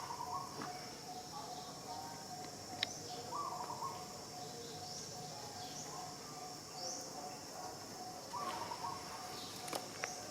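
Outdoor ambience: short rising bird chirps repeat every second or two over a steady high-pitched drone, typical of insects, with a sharp click about three seconds in.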